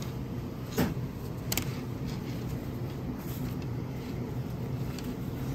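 Steady low machine hum, with two short clicks about one and one and a half seconds in.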